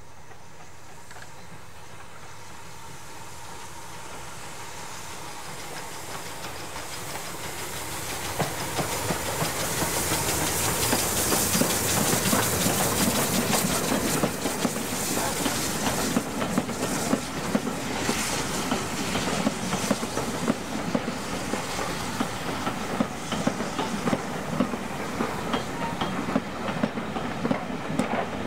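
BR Standard Class 2MT 2-6-0 steam locomotive passing with a train of coaches. Its sound builds over the first ten seconds to a loud steam hiss as the engine goes by, followed by a steady rhythmic clickety-clack of the coach wheels over the rail joints.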